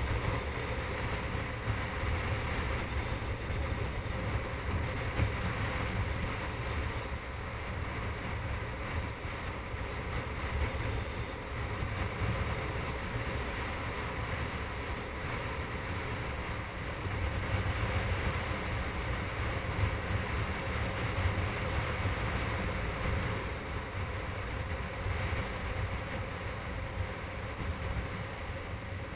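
Wind rushing and rumbling on the microphone of a camera riding on a motorcycle at highway speed, with the motorcycle's engine and road noise running steadily underneath.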